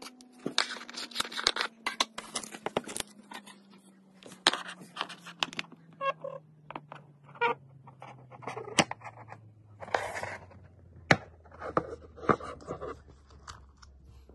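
DJI Action 2 camera unit and its front touchscreen module being handled: irregular plastic clicks, taps and short scrapes as the two cubes are turned, set down on the table and pulled apart. Under it runs a faint hum that slowly sinks in pitch.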